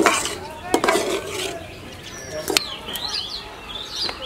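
A metal spatula knocks and scrapes against a metal frying pan of chopped onion and chili, twice in the first second. Small birds chirp in quick, repeated calls through the second half.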